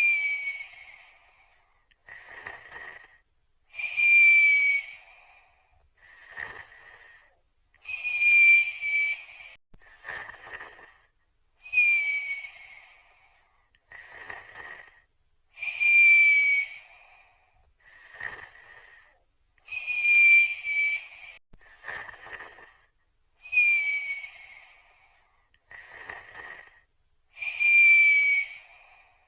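Snoring sound effect: a rasping snore followed by a short, slightly falling whistle, the cycle repeating about every four seconds, eight whistles in all.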